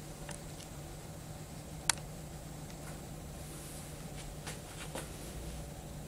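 A few light, sharp clicks of a thin plastic spatula against glass while honey is scooped from a jar into a beaker, the clearest about two seconds in, over a low steady hum of room tone.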